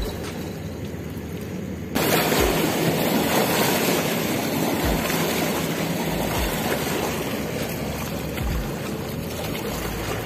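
Wake waves from a passing cargo ship washing onto the riverbank: a steady rushing of water that gets suddenly louder about two seconds in, with a few low wind thumps on the microphone.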